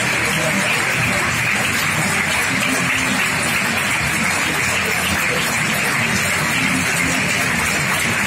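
Cinema audience applauding in a long ovation: a dense, steady wash of clapping.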